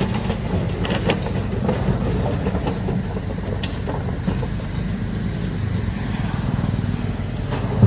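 Heavy construction machinery working: a large diesel engine runs with a steady low rumble, with scattered metallic clanks and knocks and one sharp loud knock near the end.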